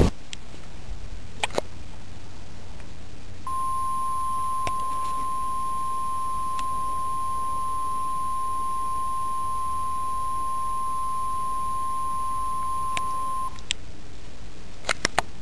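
Television emergency alert beep: one steady pure tone lasting about ten seconds, the attention signal ahead of a severe thunderstorm warning broadcast. A few faint clicks come before and after it.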